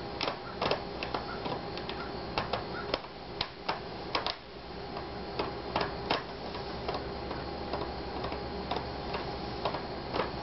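Irregular sharp clicks and ticks of small plastic and metal parts being handled at the screen hinge of an Asus X54C laptop, most of them in the first six seconds and fewer after.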